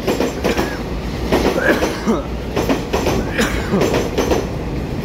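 Taiwan Railway EMU3000 electric multiple unit running along the platform, its wheels clattering over the rail joints in an uneven series of knocks over a steady rumble.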